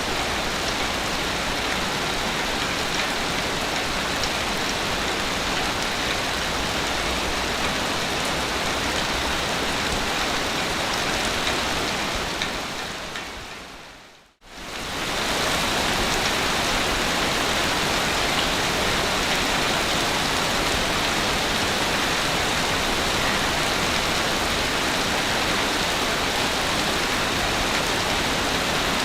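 Sea waves washing on a beach, a steady dense hiss of surf. About halfway through the sound fades down to near silence and swells back up over a couple of seconds.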